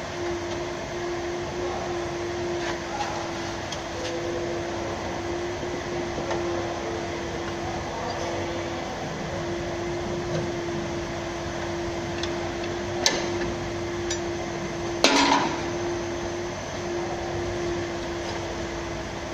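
Garage background: a steady machine hum holding one tone over a broad hiss, with a sharp metallic tap about two-thirds of the way through and a louder metal clank a couple of seconds later.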